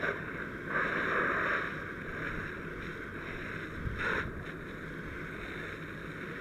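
Fire hose nozzle flowing a steady stream of water, a constant rushing hiss that swells louder briefly about a second in and again about four seconds in.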